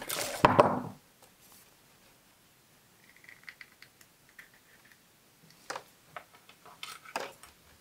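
Hands handling wooden beads and a thin wooden stick: light clicks and taps, loudest in the first second, then scattered faint ticks.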